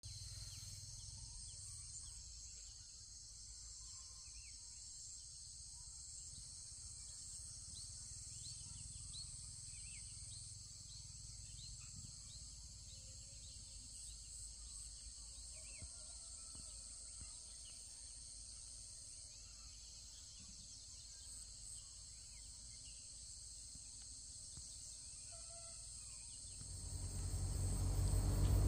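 Faint, steady chorus of insects with scattered short bird chirps over a low rumble. Near the end a louder, deeper sound swells in.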